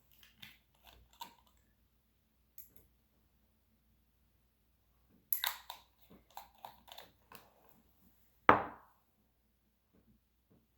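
Small clicks and handling noises of a serum bottle being opened and used, in two short clusters, then one sharp knock about two seconds before the end.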